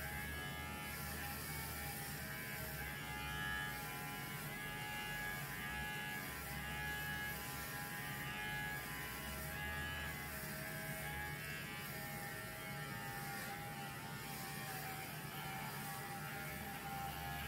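Electric hair clipper buzzing steadily as it is run over a dog's coat, with soft music playing underneath.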